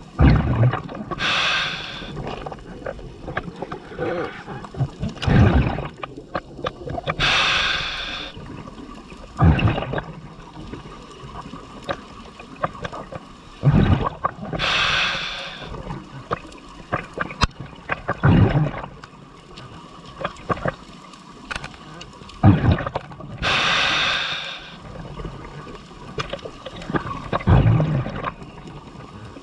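Scuba diver breathing through a regulator underwater: a hissing inhalation, then the exhaled bubbles bubbling and gurgling out, slow breaths every several seconds.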